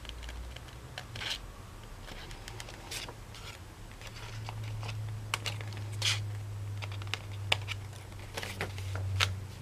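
Small precision scissors cutting through white paper in a string of short, irregular snips, with light paper rustling as the sheet is turned. A low steady hum runs underneath and grows stronger about halfway through.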